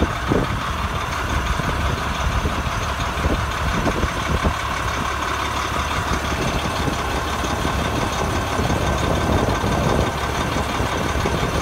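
The fire truck's diesel engine idling steadily, heard from underneath the truck.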